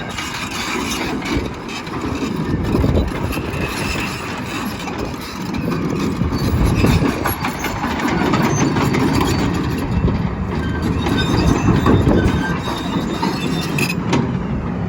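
Volvo EC360CL hydraulic track excavator running and moving, its steel tracks clanking and squealing over a steady machine noise.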